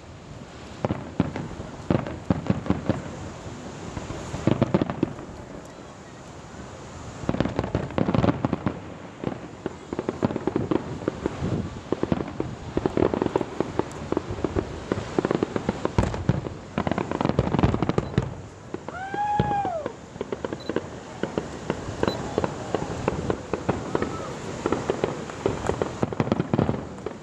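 Fireworks display: aerial shells bursting in quick succession with bangs and crackling, and other displays going off farther away at the same time.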